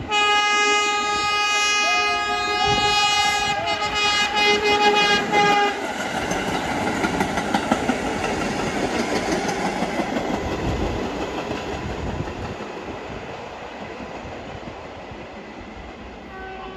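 A New York City subway train's horn sounds one long steady blast of about six seconds, breaking into short pulses near its end. The train then runs past with wheel and rail noise that fades as it moves away, and a faint horn tone starts again near the end.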